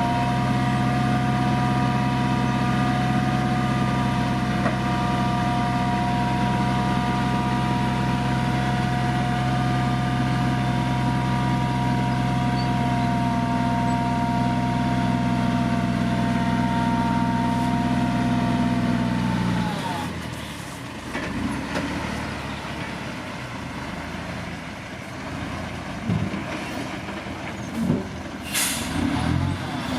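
Heavy diesel engine of a construction vehicle running steadily with a high whine, then dropping away suddenly about two-thirds of the way through, leaving quieter knocks and a brief hiss near the end.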